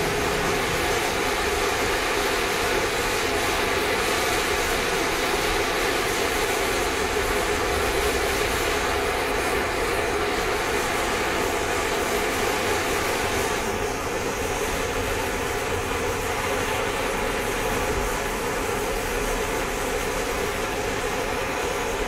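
Hand-held MAP-gas torch burning steadily with a continuous rushing noise, its flame held on a brass fitting in a metal dish to bring it to red heat. The rush drops slightly in level about two-thirds of the way through.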